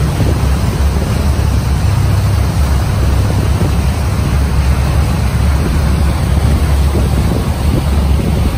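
Wind buffeting the microphone on a boat under way, over the steady rush of water churning in its wake. The noise is loud and even throughout, heaviest in the deep low end.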